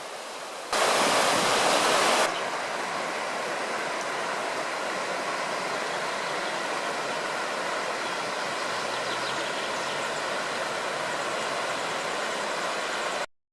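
The Ahr river flowing, a steady rushing noise. A louder, brighter rush lasts about a second and a half near the start, and the sound cuts off suddenly near the end.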